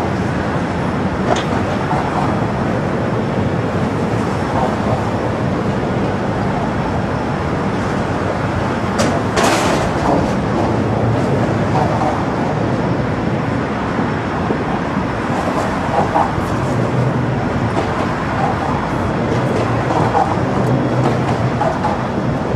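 Steady rumbling city noise, with a short hiss about nine and a half seconds in.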